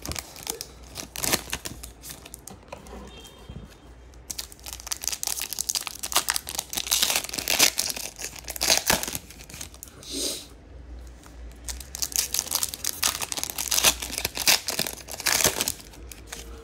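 Foil wrappers of 2022 Topps Chrome trading card packs crinkling and tearing as packs are torn open and handled, in irregular bursts that grow busier after the first few seconds.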